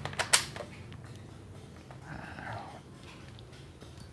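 Two sharp plastic clicks in quick succession as the magazine of a D'Cobra spring-powered AK-47 toy airsoft rifle is pushed home into the magazine well. A brief soft rustle follows about two seconds in.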